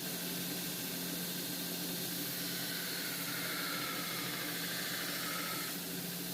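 A steady hiss over a low, even machine hum; a higher, slightly falling tone joins about two and a half seconds in and cuts off suddenly near the end.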